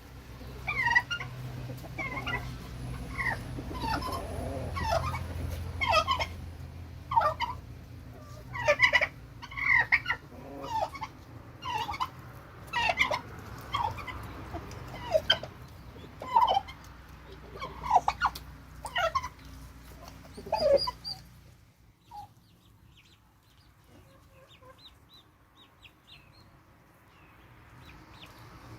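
Domestic poultry calling: a run of short, sharp calls about once a second, over a low steady rumble. About three-quarters of the way through, both the calls and the rumble stop, leaving only faint high chirps.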